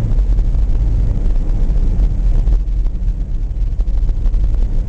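Steady low rumble of a vehicle driving on a snow-covered highway, heard from inside the cab: engine and tyre noise.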